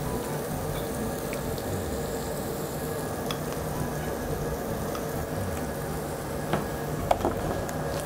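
Cubes of pork neck and pork belly sizzling on a tabletop barbecue grill: a steady frying hiss, with close-up chewing over it and a few light clicks near the end.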